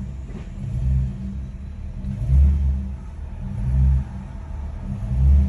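2007 Ford Crown Victoria's 4.6-litre V8 and drivetrain running under way, heard from inside the cabin. A low rumble swells in surges about every second and a half, with no exhaust rattle now that a clamp holds the rusted-off piece underneath.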